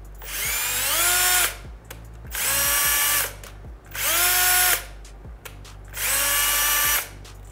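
Milwaukee cordless drill spinning a corroded bolt held in a folded Scotch-Brite pad, scrubbing the corrosion off. It runs in four bursts of about a second each, the whine rising as the motor spins up and then holding steady until the trigger is let go.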